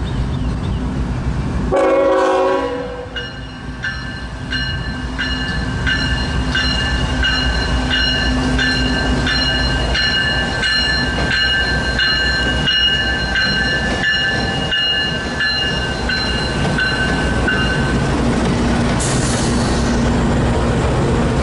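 CSX diesel locomotives of an empty coal train passing close by. A short horn blast sounds about two seconds in. Then the locomotive bell rings at a steady beat until near the end, over the engines' low rumble and the wheels on the rails.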